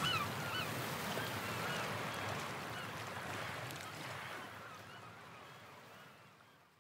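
Background music fading out to silence, a short, evenly repeated honk-like lead figure fading with it.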